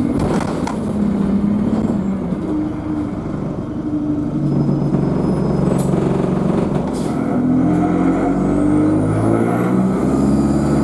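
Alexander Dennis Enviro200 bus's diesel engine under way, picking up speed near the end, with a high turbo whine that climbs steeply in pitch over the last few seconds. A few short clicks or rattles.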